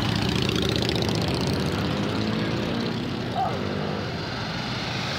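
Motorcycle engines running as bikes ride past in a procession, with one rising in pitch about a second in. The sound eases off a little after about three seconds.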